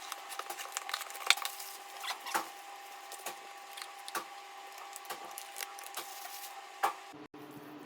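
Irregular clicks and taps of a watch box and its packaging being handled, with a faint steady hum underneath. The background changes abruptly about seven seconds in.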